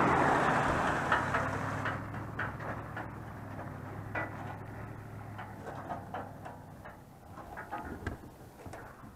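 Low, steady hum of a boat motor that fades away over several seconds, under a rush of wind or water noise at first, with scattered light knocks.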